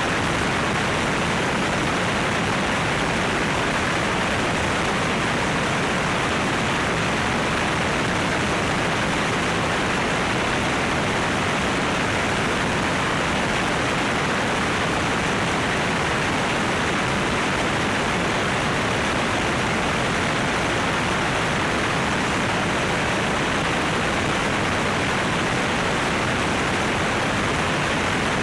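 Steady rush of airflow and engine noise from a light aircraft in cruise at about 160 knots, picked up by a camera mounted outside on top of the fuselage. It holds even and unchanging throughout, with no distinct engine tone standing out.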